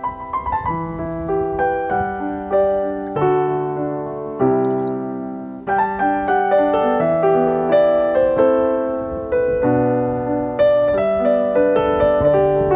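Background music: a piano piece playing a melody over held chords, each note struck and dying away.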